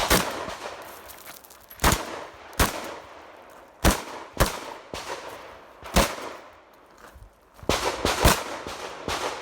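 Remington 870 pump-action shotgun fired about eight times in rapid stage shooting, several shots in quick pairs about half a second apart, each shot ringing out briefly.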